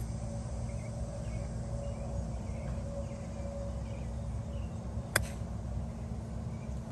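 A golf club strikes the ball once on a low running chip (bump-and-run): a single sharp click about five seconds in, over steady outdoor background noise with faint chirps.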